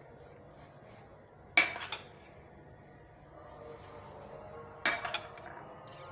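A metal table knife clinking against a small sauce bowl twice, about a second and a half in and again near five seconds, each a sharp ringing clink with a smaller click after it. Between them, faint scraping as the sauce is spread on a slice of bread.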